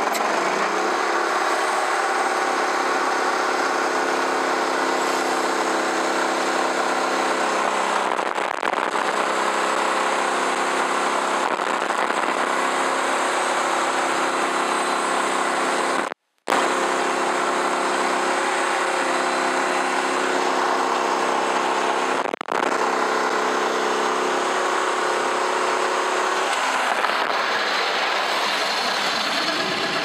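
Norwood HD36 portable bandsaw mill running steadily under load as its band blade saws through an elm log. The sound breaks off for a moment just past halfway, and the engine's steady note fades away near the end as the pass finishes.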